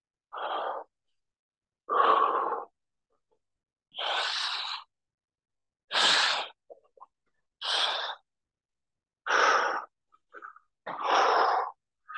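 A man breathing out hard in short, forceful puffs from the effort of dumbbell overhead reverse lunges, seven exhales spaced about every one and a half to two seconds.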